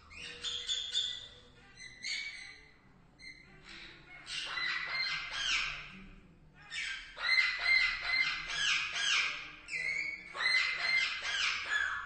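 Parakeets squawking: harsh calls in quick runs of several notes, coming in about four bouts with short pauses between them.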